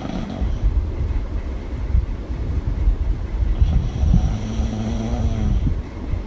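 A person snoring loudly with the mouth open: a continuous low rumble, with a pitched snore lasting over a second about four seconds in.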